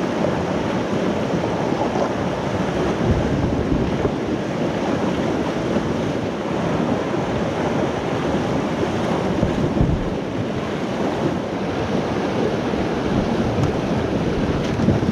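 River whitewater rushing steadily through a small rocky rapid, close to the microphone.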